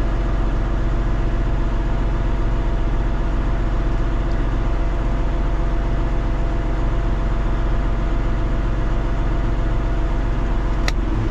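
John Deere 9620R tractor's 15-litre six-cylinder diesel idling steadily, heard from inside the cab. There is a single sharp click near the end.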